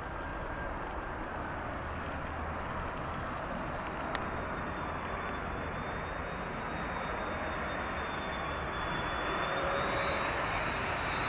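Airbus A330-300 airliner on final approach with its gear down, the rushing sound of its two jet engines growing slowly louder as it comes closer. A faint high whine joins in about four seconds in and climbs slightly near the end.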